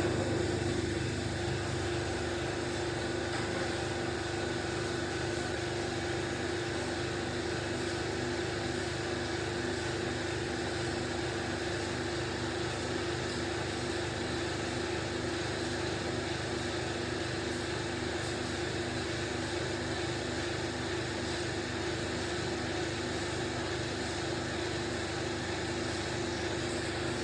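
Steady mechanical hum with a faint regular pulsing, unchanging throughout.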